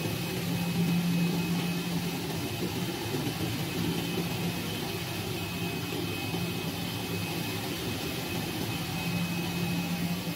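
Automatic CNC digital fabric cutting machine running while it cuts PVC tarpaulin: a steady machine hum, with a low drone that swells and fades every few seconds and a faint high whine.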